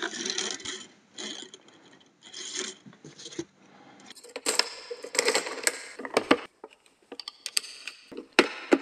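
Plastic and metal parts of an airsoft MK46 replica being handled as the rear of the receiver is opened to reach the spring. There are three short scraping strokes, then a run of sharp clicks and rattles.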